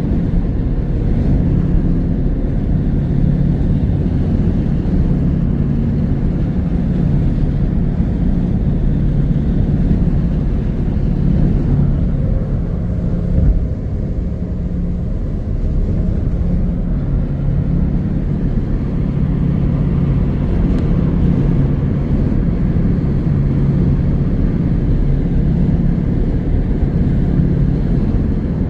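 A car driving along, heard from inside the cabin: a steady low drone of engine and road noise with a constant hum.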